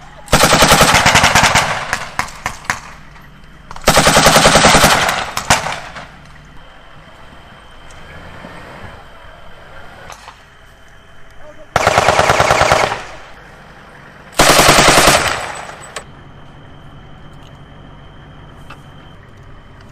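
Four long bursts of automatic gunfire from a machine gun, each lasting a second or more. The first pair comes close together and the second pair about ten seconds in, with echoing tails and a few single shots in the gaps.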